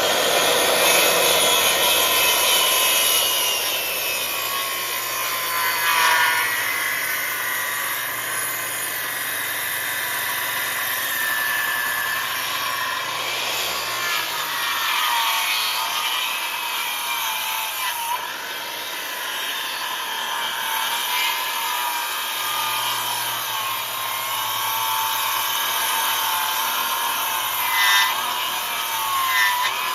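DeWalt circular saw running and cutting into a timber in a plunge cut at a 45-degree bevel, its whine wavering in pitch as the blade takes the load.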